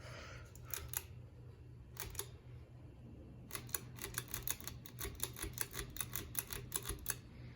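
Clicking of a Hunter Balboa ceiling fan's reverse switch being flicked over and over: a few scattered clicks, then a quick run of about four or five clicks a second through the second half, over a low steady hum. The switch is faulty and does not reverse the fan.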